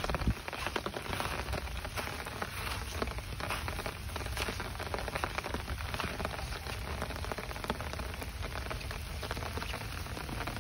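Steady rain pattering on grass and orchard foliage, a dense run of fine irregular ticks.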